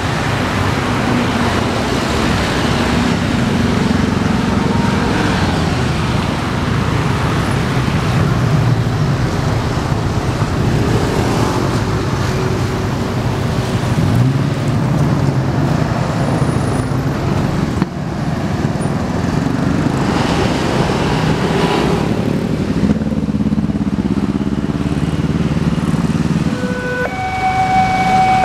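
Road traffic passing: motorcycles and cars driving by with their engines running. Near the end the level crossing's electronic warning alarm starts, a sequence of steady pitched tones that step from one pitch to another.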